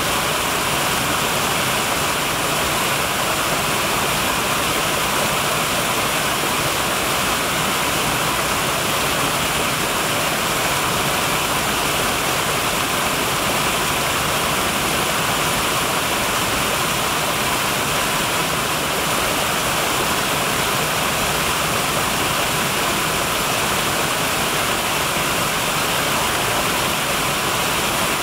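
Small brook waterfall: water pouring over rock cascades into a shallow pool, a steady, even rushing.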